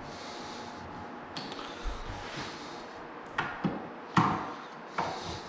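A few sharp knocks from handling flat-pack cabinet parts during assembly, four of them in the second half, the loudest a little after four seconds in.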